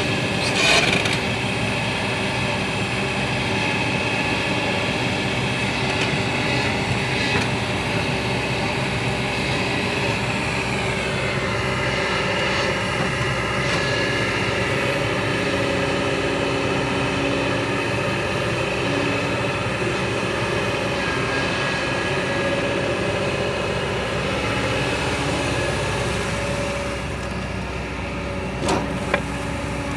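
A large engine running steadily. About ten seconds in its pitch drops and settles lower, as the revs fall. A few sharp knocks come near the end.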